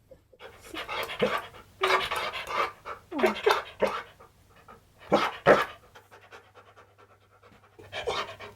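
Husky-malamute mix panting in several breathy bursts, with a few short falling vocal sounds mixed in; the bursts come about half a second to four seconds in, again around five seconds, and near the end.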